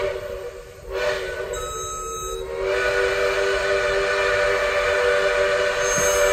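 Steam locomotive's chime whistle blowing a long, steady chord of several tones, dipping briefly under a second in and then sounding on.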